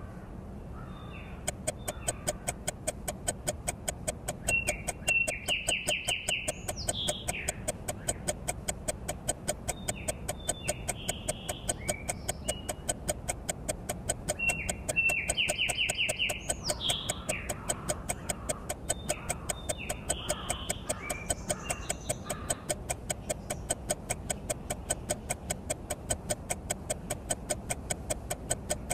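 Fast, even ticking like a clock begins about a second and a half in and keeps going under bird calls. The same cluster of chirps and calls comes back about ten seconds later, like a looped sound-effect track.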